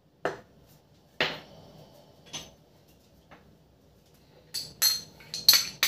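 A few light clinks of a ceramic dish and spoon against a glass chopper bowl and sauce dish as sauce is added, then near the end a fast, loud run of sharp, jingling taps.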